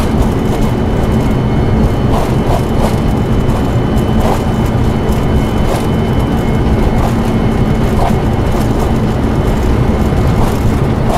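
Steady, loud engine and airflow noise in the flight deck of a Boeing 747-400 freighter, with a constant low hum under it.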